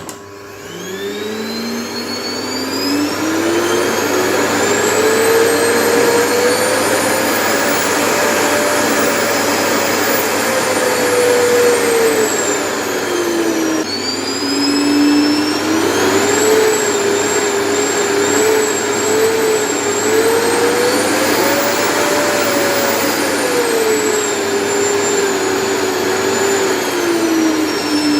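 Vacuum cleaner motor switched on with a click and spinning up, its whine then rising and falling in pitch several times as the speed control is turned up and down. The adjustable speed is working.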